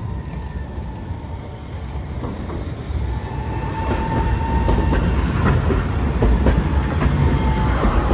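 Hiroshima Electric Railway 5100-series Green Mover Max low-floor tram approaching and passing close by, growing louder: a steady whine that dips slightly in pitch near the end, rumble, and a run of sharp clicks as its wheels cross rail joints.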